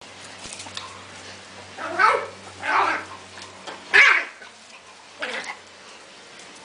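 A dog barking: four short barks spaced about a second apart, the third the loudest.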